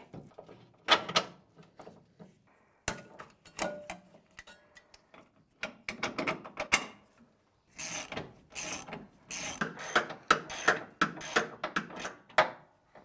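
Hand ratchet wrench clicking in several bursts of quick strokes as the mounting bolts of a new rear shock absorber on a pickup are run in and tightened.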